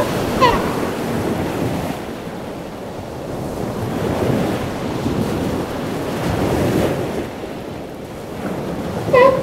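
Surf breaking and washing up the beach, swelling twice, with wind buffeting the microphone. Elephant seals give short, pulsed, repeated calls, about two a second, at the very start and again just before the end.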